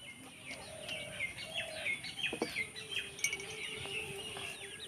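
Small birds chirping outdoors: many short, quick calls overlapping one another. A faint steady hum joins about halfway through.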